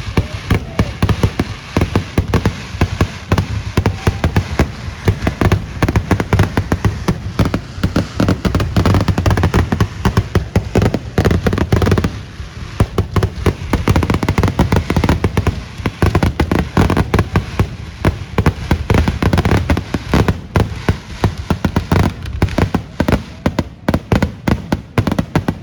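A fireworks display going off in a dense, continuous barrage of bangs, many a second, overlapping into a low rumble.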